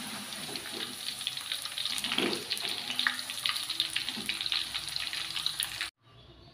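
Diced potatoes sizzling and crackling in hot oil in a wok as they are lifted out with a wire spider strainer, with small clicks of the strainer against the pan. The sound cuts off suddenly near the end.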